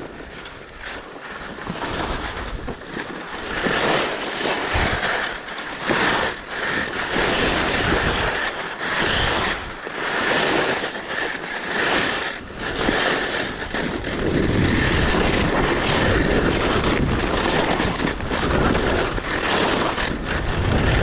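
Alpine skis scraping and hissing over packed, groomed snow on a descent, the noise swelling and dipping about every two seconds as the skier turns, then steadier later on, with wind buffeting the microphone.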